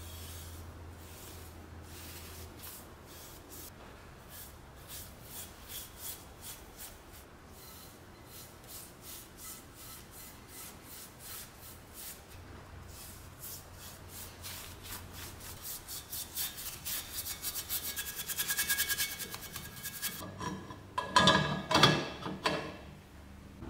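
A bristle brush is stroked and dabbed against a cast iron charcoal iron, applying black paint in short, even strokes that quicken into rapid strokes. Near the end come a few loud metallic clanks with a short ring.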